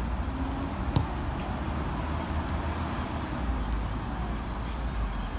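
Steady outdoor rumble and hiss, with one sharp thump of a football being kicked about a second in and a few faint ticks after it.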